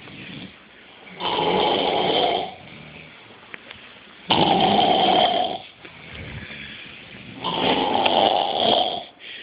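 Snoring: three loud, rasping snores about three seconds apart, with quieter breathing between them.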